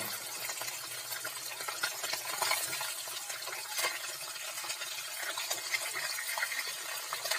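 Rohu fish pieces sizzling and crackling steadily in hot oil in a kadai, with a wooden spatula scraping in the pan as the pieces are turned over.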